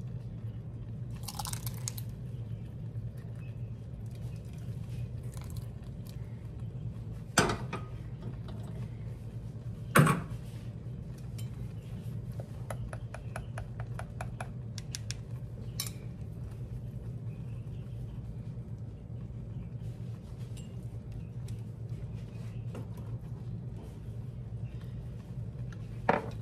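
Relish spooned into a glass canning jar through a stainless steel funnel, with two sharp clinks of metal on glass about seven and ten seconds in. Then a run of small quick ticks as a chopstick is worked around inside the jar to release air bubbles. A steady low hum sits underneath.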